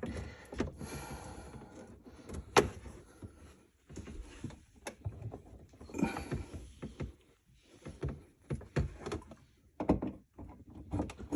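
Handling noise: scattered clicks, knocks and light thunks as a dishwasher's power plug and parts are handled, with one sharp click about two and a half seconds in.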